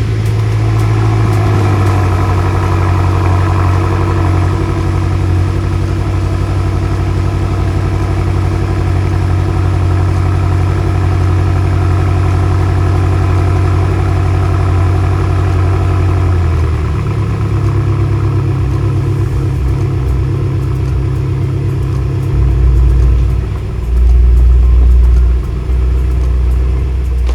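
BMW F10 M5's twin-turbo V8 engine cold-started and idling steadily. Its note changes about two-thirds of the way in, and a louder low rumble comes in near the end.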